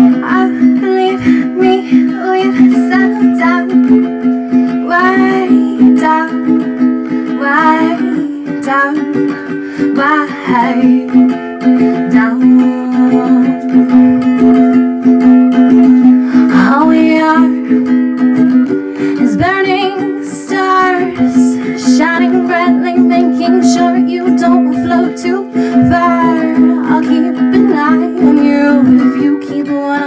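A woman singing to her own strummed ukulele, a folk song with a steady accompaniment and no pauses.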